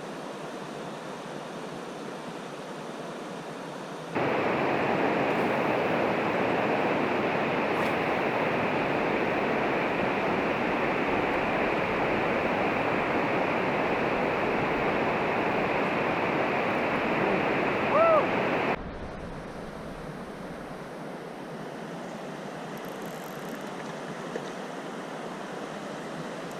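Steady rushing of river water, suddenly louder and fuller from about four seconds in until about three-quarters through, then dropping back just as abruptly. A short rising squeak sounds just before the drop.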